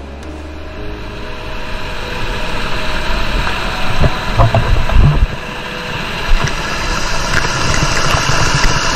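White water rushing and splashing over a small rocky cascade in a river, a steady, dense rush that grows louder over the first few seconds as it comes closer. A few low thumps around the middle.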